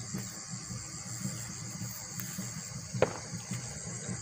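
Insects chirring steadily at a high pitch with a fast, even pulse, with a single sharp click about three seconds in.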